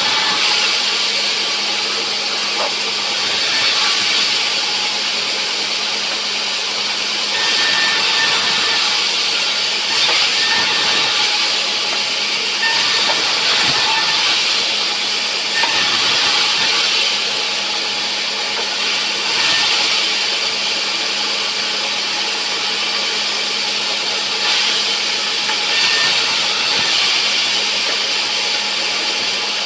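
Sawmill saw running steadily with a constant motor hum, the cutting noise swelling every few seconds as the blade goes through a bent rubberwood log.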